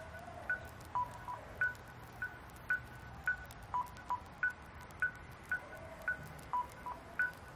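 Short electronic beeps at two pitches, about two a second, over a faint low hum. The lower beeps come in pairs every few seconds among the higher ones.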